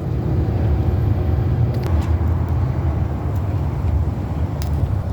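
Steady low rumble of a running vehicle engine, with a few faint light clicks about two seconds in and again near the end.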